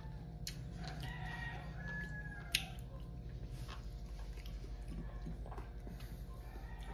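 Rooster crowing once, a drawn-out call starting about a second in, followed by a single sharp click. A steady low hum runs underneath.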